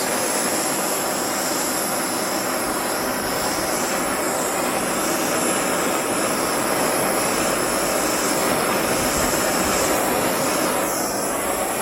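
Propane torch burning with a steady hiss, its flame heating heat-shrink tubing to shrink it onto a metal pin.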